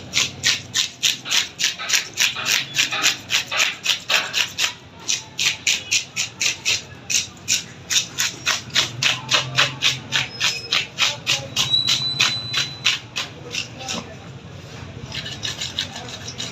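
Rapid, even scraping strokes of a knife on a rohu fish, about three a second, as it is scaled and cut. The strokes stop for a moment about fourteen seconds in, then start again.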